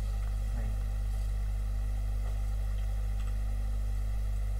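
Steady low electrical hum, mains hum in the recording, with no other clear sound above it.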